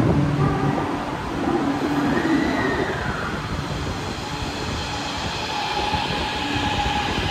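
Metro train moving at the station platform: a steady electric motor whine with wheel rumble on the rails. The whine rises and falls in pitch about two seconds in.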